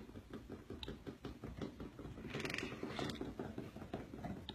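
Fast, even rattling at about five or six knocks a second: a severe Parkinson's tremor shaking the patient's body and chair, not yet controlled by the deep brain stimulator. A brief louder rustle comes about two and a half seconds in.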